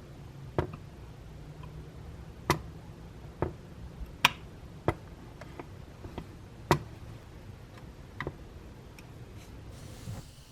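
Irregular sharp clicks and taps of small hard parts and tools being handled, about nine in all, some louder than others, over a low steady hum.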